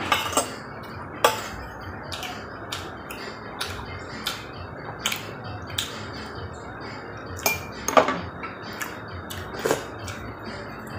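Metal spoon and fork clinking and scraping against a ceramic plate and soup bowl while eating: irregular sharp clinks, the loudest about a second in and around eight seconds in.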